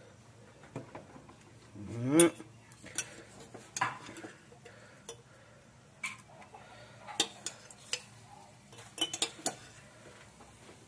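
Metal ladle clinking and scraping against a large aluminium pot, several separate knocks, as fried garlic is tipped into the oil. About two seconds in there is a brief, loud rising pitched call.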